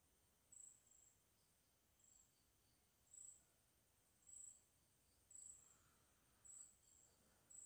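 Near silence: room tone with a faint, short, high-pitched chirp repeating about once a second.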